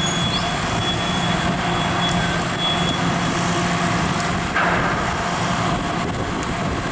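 Street traffic: a heavy vehicle's engine running with a steady low hum that fades about four and a half seconds in, with a short rush of noise just after.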